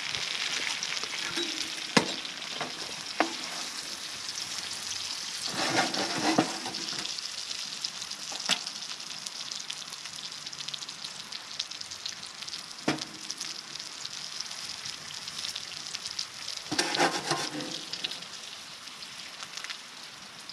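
Eggs and two burger patties sizzling steadily in a frying pan on a wood stove. A spatula scrapes the pan in two longer stretches, and there are a few sharp clicks.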